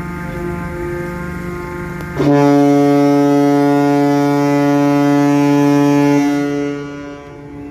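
Ship's horn sounding one long steady blast of about four seconds, over the steady hum of running engines; it starts suddenly about two seconds in and fades away near the end. A long blast like this is typical of a ferry signalling its departure.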